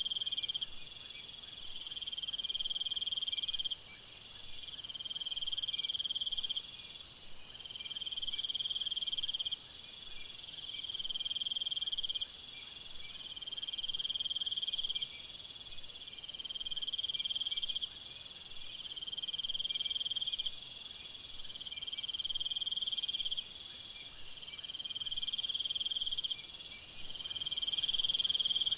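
Night jungle insect chorus: a dense, high, continuous shrilling of many insects, over which one insect call comes in long trills about every two seconds. The chorus dips briefly near the end.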